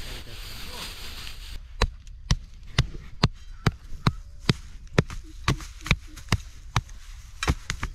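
Hoe chopping repeatedly into hard, dry field soil: a run of sharp strikes, about two a second, starting a little under two seconds in. Before the strikes there is a steady hiss.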